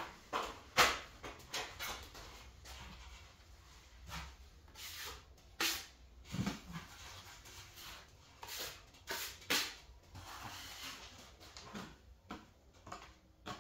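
Metal putty knife spreading and scraping wet drywall plaster across a ceiling in short, irregular strokes, with a few pauses between groups of strokes.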